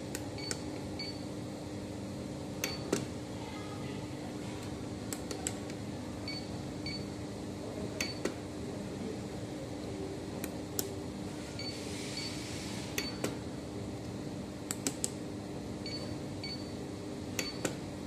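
Plastic button clicks as a key-fob remote and the SMG-3002 remote copier are pressed, singly or in quick pairs, with short high electronic beeps from the copier several times, over a steady low hum.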